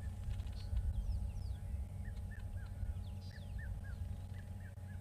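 Weaver birds chirping at their nest colony. From about two seconds in, short curling chirps repeat in quick groups of three, with higher scattered chirps above them, over a steady low rumble.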